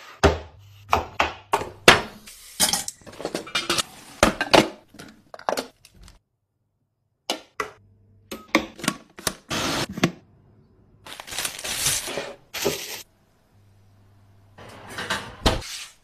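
Kitchen preparation sounds in quick succession: knocks, clicks and clinks of a wooden chopping board, a metal mixing bowl and utensils, broken by a few longer scraping or rustling bursts and a pause of about a second near the middle.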